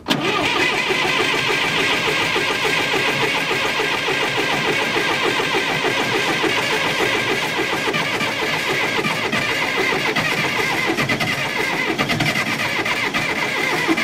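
Starter cranking the cold engine of a John Deere 450 crawler loader in well-below-freezing weather without ether, a steady, rhythmic churn that goes on without the engine catching and stops at the very end. It is a failed cold-start attempt.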